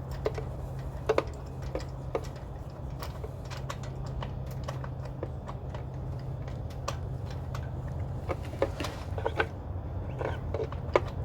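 Scattered metal clicks and taps of a ratchet wrench and spark-plug socket being worked on a spark plug in the engine, some in quick little clusters, over a steady low hum.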